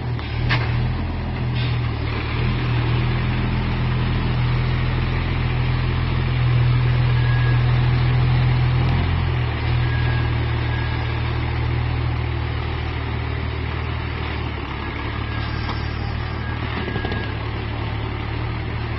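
Mercedes-Benz Unimog truck's engine pulling at low revs as the truck crawls over rock ledges, growing louder for a few seconds about a third of the way in, then settling back to a steady run.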